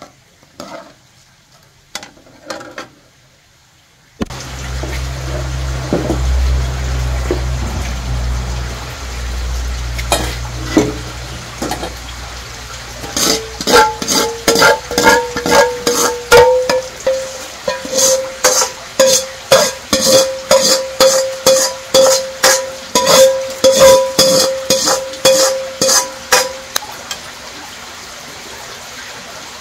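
A metal utensil knocks against a cooking pot in a steady rhythm, about one and a half strokes a second, with a ringing tone, through the second half. Before that comes a steady low hum with a frying-like hiss.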